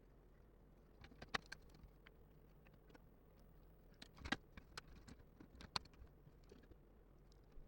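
Scattered light clicks and taps from handling small parts of a disassembled laptop, a few sharper ticks standing out over an otherwise near-silent background.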